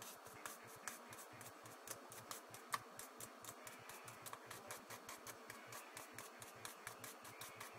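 Toothbrush bristles scrubbing back and forth over the speaker holes of an iPhone 3GS to clear built-up gunk: faint, quick, even scratchy strokes, several a second.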